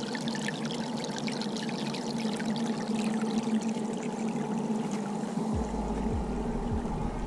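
Small forest stream trickling and splashing over rocks and a little ledge, a steady rush of running water with fine bubbling. A low rumble comes in near the end.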